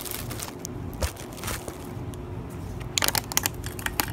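Scattered clicks, knocks and crunching handling noises on an old Echo power pruner as it is readied for starting, with a cluster of quick clicks about three seconds in. The two-stroke engine is not running.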